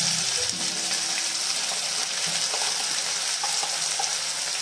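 Hot oil sizzling steadily in an iron kadai, with bay leaves and turmeric frying in it, with a few faint ticks.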